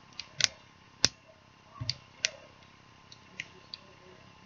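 Sharp metallic clicks of a slide-latch leash clasp being worked against a prong collar's live ring, about seven at irregular spacing. The loudest come near the half second and the one second mark.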